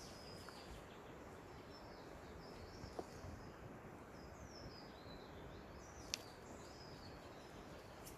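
Faint bird calls: short, high falling chirps again and again over a low steady hiss, with a single sharp click about six seconds in.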